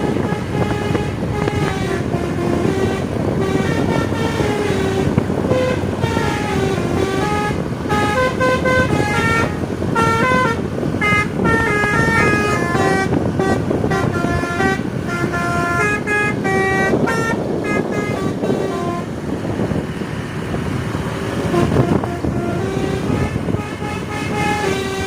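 Tour bus's Basuri 'telolet' multi-tone horn playing a fast tune of short stepped notes over steady background noise, pausing briefly near the end before starting up again.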